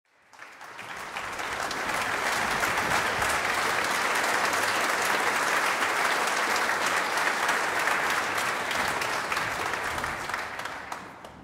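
Concert audience applauding in a hall, a dense crackle of many hands clapping that swells over the first couple of seconds and dies away near the end.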